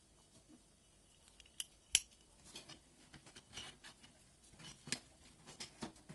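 Light clicks and taps of bicycle controls being handled: a brake lever and a trigger shifter knocking against a handlebar as they are offered up and turned. One sharp click about two seconds in is the loudest, with another near five seconds.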